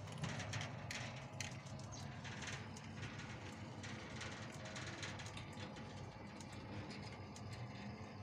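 Small covered scooter humming low and steady, with many light clicks and rattles scattered through it.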